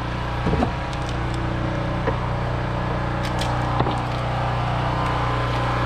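An engine running steadily with an even hum, with a few light knocks, two close together about a second in and a sharper one near four seconds in.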